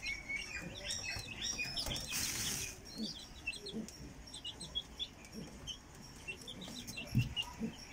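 Young domestic chicken chicks peeping over and over in short, high chirps, with a brief rustling burst about two seconds in.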